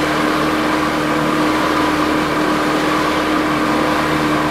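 Boat engine running at a steady pitch, a constant hum over a wash of noise.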